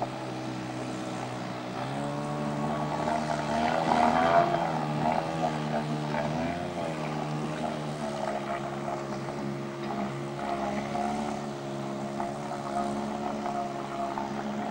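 Small outboard motor on an inflatable dinghy running under way. Its steady engine note rises about two seconds in, wavers for a few seconds, then holds steady.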